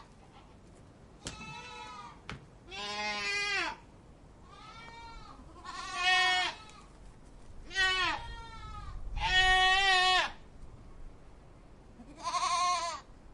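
Goat bleating repeatedly: about seven wavering, nasal calls, each lasting half a second to a second, with short gaps between them. Two sharp clicks come early on.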